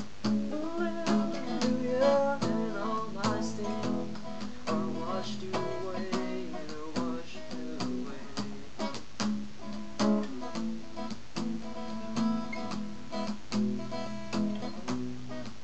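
Acoustic guitar strummed in a steady rhythm, playing the chords of a worship-song cover, recorded through a webcam microphone with some static.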